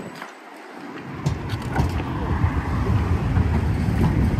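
Siemens Combino low-floor tram passing close by, a steady rumble of its wheels on the rails and running gear that grows louder after about a second and then holds.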